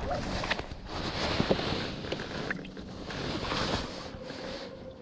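Oars pulling through water from an inflatable rowing boat, with two swells of swishing water about two seconds apart, under wind on the microphone.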